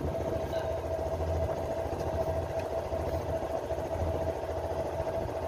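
A boat's engine running steadily at idle: a low, pulsing hum with a constant higher whine over it.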